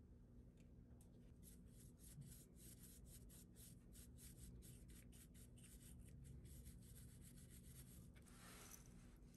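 Faint, quick strokes of a small bristle paintbrush over a 3D-printed knife pattern, several a second, sweeping excess white powder off it, with a short hiss near the end.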